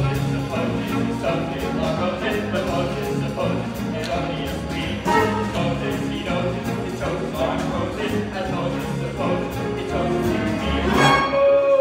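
Brisk instrumental show music with a steady beat, punctuated by sharp, evenly spaced clicks.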